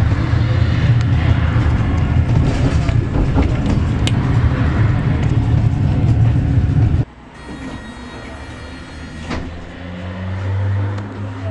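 Tram running on its track, heard from inside: a loud, steady low rumble. It cuts off suddenly about seven seconds in, giving way to quieter road traffic, with a car passing near the end.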